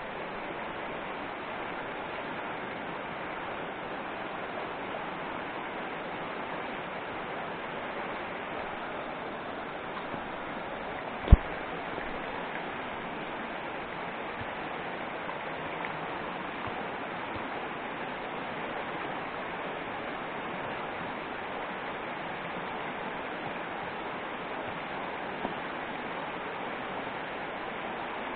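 Steady rush of a shallow stream running over stones and riffles. A single sharp knock, the loudest thing in it, stands out a little over a third of the way in.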